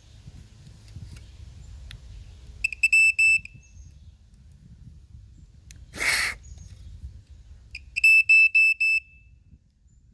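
Black & Decker smoke alarm sounding on test: two bursts of rapid, high-pitched beeps, the first about three seconds in and the second near the end. A short loud rush of noise comes about six seconds in.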